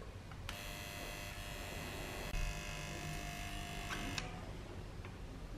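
Electric soldering gun buzzing steadily while its trigger is held to solder a capacitor lead. It starts about half a second in and cuts off suddenly after about four seconds.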